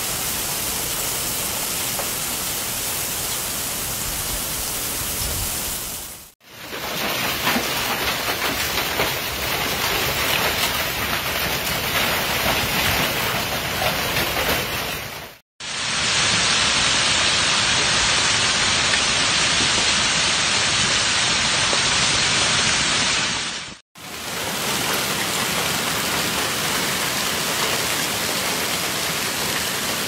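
Hail and heavy rain pouring down in a dense, steady hiss of stones and drops striking. It comes in four stretches, each broken off by a brief silence about 6, 15 and 24 seconds in.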